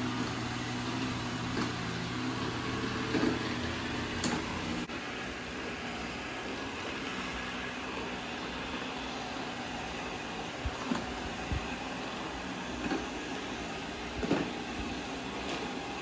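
Ecovacs Deebot robot vacuum running with a steady motor hum, which drops in level about five seconds in. A few light knocks in the second half.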